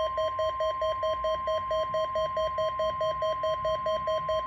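NOAA Weather Radio 1050 Hz warning alarm tone, held steady during the weekly test of the station's public warning system. A lower tone beeps rapidly alongside it, about four or five beeps a second.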